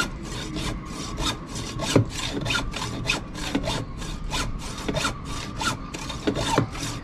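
Hand saw cutting at the foot of a boat's rudder, where it joins the shoe, with quick even back-and-forth strokes about four a second: sawing through the fastenings because the bolt heads will not come undone.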